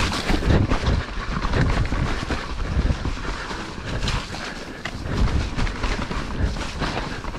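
Mountain bike being ridden over a rough, soft snowy trail, heard from a camera on the bike or rider: wind buffeting the microphone, with irregular knocks and rattles as the bike goes over bumps.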